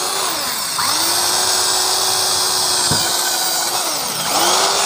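Shopcraft electric drill's motor, its field coil freshly rewound, running with a steady whine while drilling a test hole. Its speed drops and picks back up twice, with a brief dip about three seconds in. The motor is working normally again.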